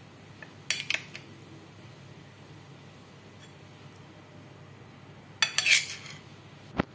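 Kitchen utensils clinking against dishes in two short clusters, about a second in and again about five and a half seconds in, with a single sharp knock near the end.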